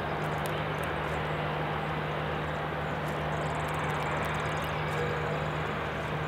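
Steady outdoor background noise: a continuous even rushing with a constant low hum under it, no change in level.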